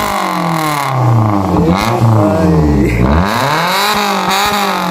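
Maruti Suzuki Zen engine being revved through a freshly fitted custom exhaust that replaces the deleted muffler: the revs fall, rise briefly about two seconds in, fall, then climb to a higher peak near the end and drop away.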